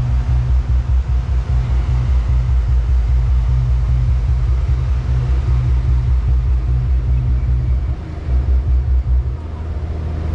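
Large outdoor PA speaker cabinets playing loud, deep bass that pulses rapidly, with a short dip about eight seconds in.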